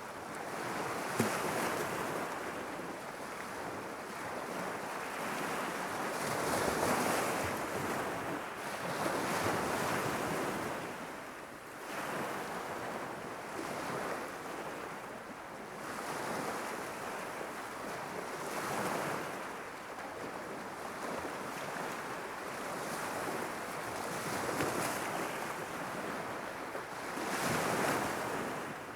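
Irish Sea waves washing in against a rocky shore, surging and falling back every few seconds, with a single sharp tap about a second in.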